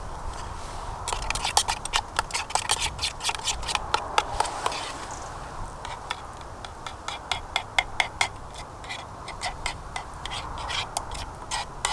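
Campfire crackling: quick irregular pops and snaps, densest in the first few seconds, then sparser and fainter.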